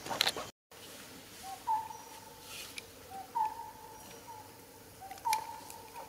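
A bird calling over and over, each call a short lower note followed by a longer, level, slightly higher note, repeating about every two seconds. The sound cuts out completely for a moment about half a second in.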